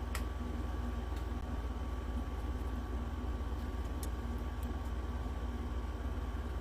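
Steady room hum and hiss, like air conditioning, with a few faint light clicks of small repair tools on the watch.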